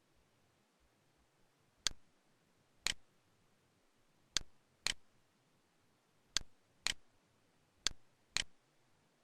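Computer mouse clicks: eight sharp clicks in four pairs, each pair about half a second to a second apart.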